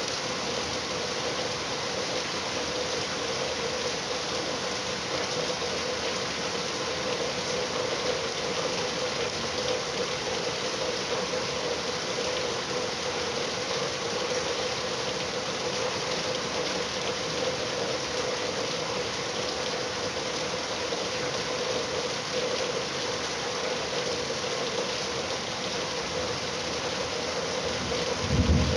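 Steady rainfall, an even hiss of falling rain, with a brief low thud near the end.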